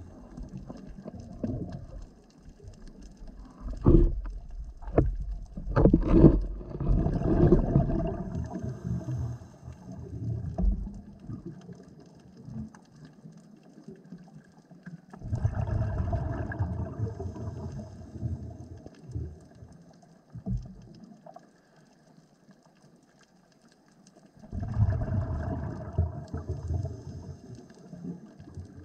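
Underwater sound through a camera housing on a reef: a few sharp knocks and rumbling in the first several seconds, then two bursts of bubbling about three seconds long and some nine seconds apart, typical of a scuba diver exhaling through a regulator.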